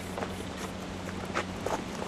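Aerosol spray paint can hissing in several short spurts, over a steady low hum.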